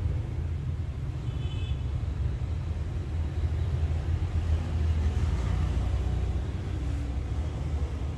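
Steady low rumble of background noise, with a brief faint high-pitched tone about a second and a half in.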